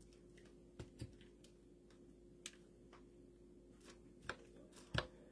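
A few faint, scattered clicks and light taps, about six in five seconds with the loudest near the end, as hands press and adjust a glued craft cutout on a board, over a faint steady hum.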